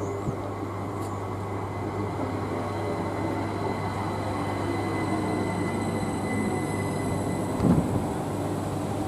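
A Class 387 Electrostar electric multiple unit passing close by, with a dense steady rumble of wheels on rail and a thin steady high whine. A sharp thump comes near the end.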